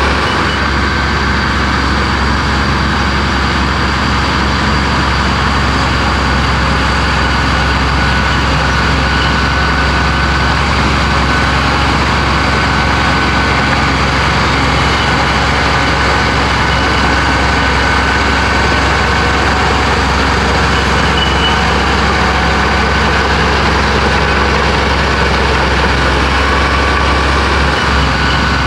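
Komatsu bulldozer's diesel engine running steadily at work, with a faint high whine that comes and goes.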